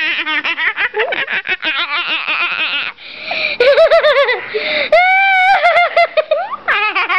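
A young girl laughing hard and without stopping in rapid, high-pitched bursts. There is a brief catch of breath about three seconds in and a drawn-out high note around five seconds, and then the quick laughter starts again.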